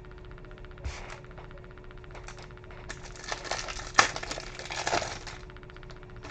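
A foil trading-card pack wrapper crinkling as it is torn open by hand, with a sharp crack about four seconds in. A soft thump comes about a second in.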